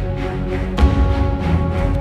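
Background music: sustained held chords, with one deep drum hit a little under a second in.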